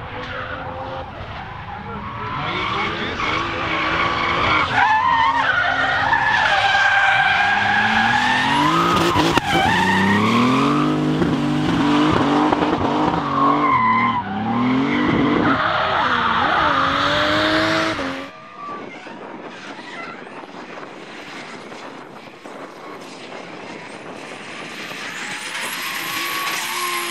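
Drift car engine revving hard, its pitch climbing and dropping with the throttle, over skidding tyres. About eighteen seconds in it cuts to a quieter, more distant sound of cars drifting.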